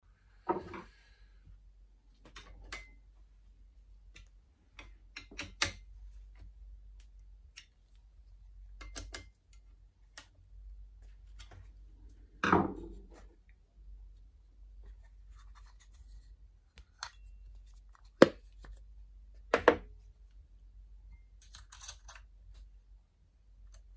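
Irregular clicks, taps and scrapes of small metal tools and parts being handled on a watchmaker's milling machine as a brass watch plate is clamped to the rotary table and the spindle head is set up. A few sharper metallic knocks stand out, the loudest about 18 seconds in.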